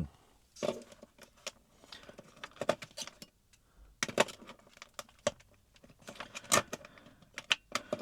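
Plastic clicks and rattles of a battery being pushed into a wall clock's battery compartment, a stiff fit, along with handling of the clock's plastic case.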